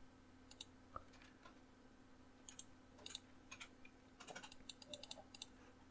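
Faint, scattered clicks of a computer keyboard and mouse, a few strokes at a time, over a faint steady hum.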